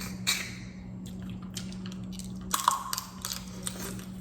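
Close-up eating sounds: wet chewing with scattered small clicks and squishes, a sharper one near the middle, over a steady low electrical hum.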